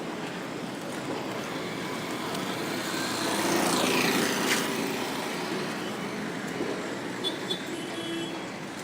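Road traffic on a city street, with one vehicle passing close by: it swells to a peak about four seconds in and then fades away.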